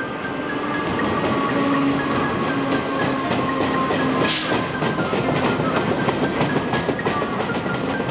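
Taiwan Railway train 501 running past, its damaged steel wheels clattering in a steady rhythm like hoofbeats, the pounding of wheel flats that have gone unrepaired. A brief hiss cuts in about halfway.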